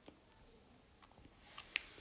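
Quiet room tone with one short, sharp click near the end.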